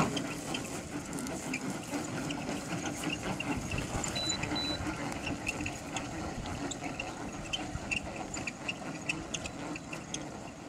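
Gas engine of a giant-scale model airplane idling steadily, with a steady hum and many small ticks over it.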